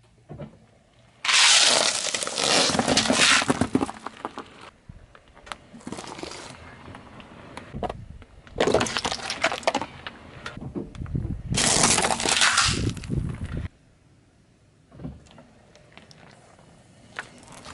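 Car tyre rolling over and crushing things: candy-coated chocolates crunching and cracking under it, then plastic bottles crackling as they give way. Several loud crunching stretches of a few seconds each, full of sharp cracks, with quiet gaps between them and some cut off abruptly.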